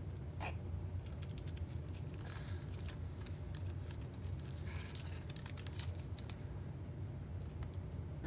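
Plastic candy wrapper crinkling in small hands as a candy is unwrapped, in scattered bursts of crackle, over a steady low hum.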